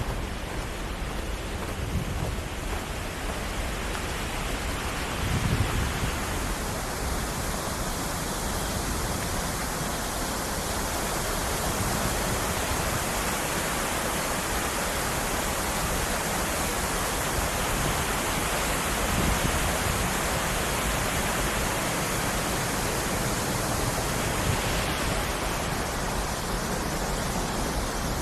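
Waterfall: a steady, unbroken rush of falling water. There are a couple of brief low thumps about two and five seconds in.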